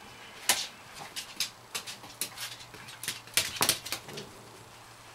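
A dog and a cat play-fighting on a parquet floor: an irregular scuffle of about a dozen sharp clicks and knocks from claws and paws on the wood over roughly three and a half seconds.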